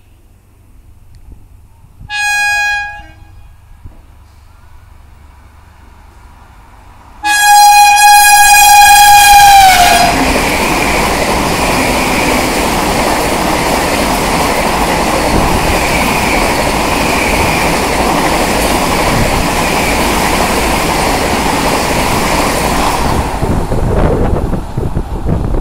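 Vande Bharat Express electric trainset passing at about 130 km/h. Its horn gives a short blast, then a long loud blast whose pitch drops as the train goes by. The steady rush of the train running past follows and fades near the end.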